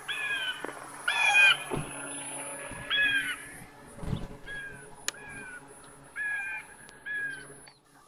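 Eagle screech sound effect played through the small speaker of an MP3 sound module on a radio-controlled foam eagle model: a string of short, shrill calls, about seven, spaced a second or so apart. A few low thumps and one sharp click about five seconds in.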